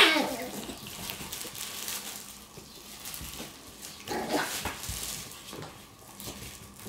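Shiba Inu puppies playing in a fabric play tunnel. A short, loud puppy yelp right at the start and a weaker yelp about four seconds in, with light scuffling of paws and fabric between them.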